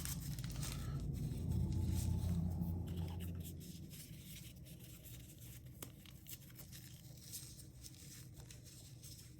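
Quiet handling of packaging and locks, with soft rustling and a few light clicks. A low, steady hum underlies the first three and a half seconds, then fades away.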